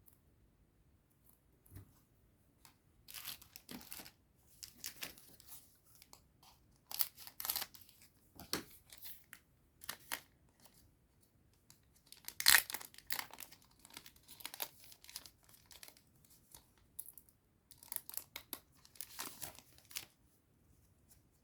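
Digimon Card Game booster pack being torn open, its foil wrapper ripping and crinkling in a series of irregular rustles, the loudest tear about 12 seconds in.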